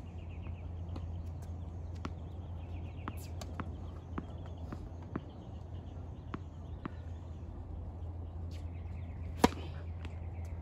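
Tennis serve on a hard court: a tennis ball bouncing several times, each a short sharp pop, then a loud crack of the racket striking the ball near the end.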